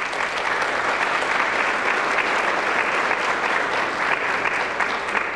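Audience applauding steadily, dying away at the end.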